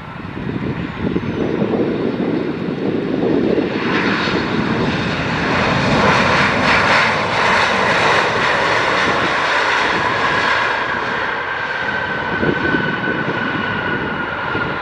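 Jet airliner's engines passing close by: the jet noise swells to a peak about halfway through and eases off, with a high whine that slowly falls in pitch as it goes.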